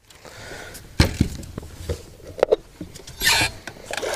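Fishing gear being handled on a bass boat's deck: a hard knock about a second in, then scattered clicks and clunks and a short rush of noise a little after three seconds.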